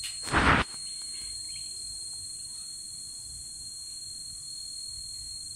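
Steady high-pitched insect chorus, like crickets, with a thin unbroken high trill running under it. A short loud rustle or bump cuts in about half a second in.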